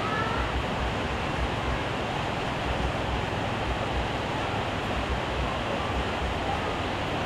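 Heavy rain falling steadily, an even hiss with irregular low thuds underneath.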